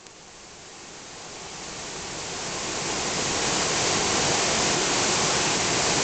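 Waterfall cascading down a sloping rock slab: a steady rush of water that grows louder over the first three seconds, then holds.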